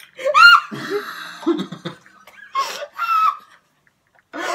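People laughing in several short bursts, with a loud, high-pitched shriek of laughter about half a second in; it dies away for the last second.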